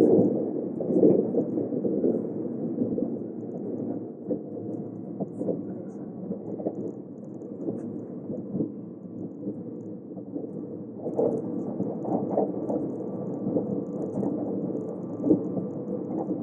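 Running noise inside a moving electric train: a steady rumble of wheels on rails with scattered small clicks. It is loudest at first, eases after a few seconds, then picks up again with a faint steady hum about eleven seconds in.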